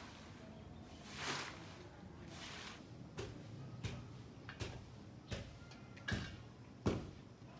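A grass broom swishing twice over a dirt yard, then six short sharp snaps about every three-quarters of a second as cauliflower florets are broken off by hand over a steel plate. The last snap is the loudest.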